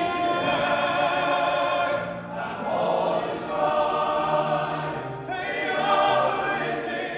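Welsh male voice choir singing in sustained, many-voiced phrases, with brief breaks between phrases about two and five seconds in.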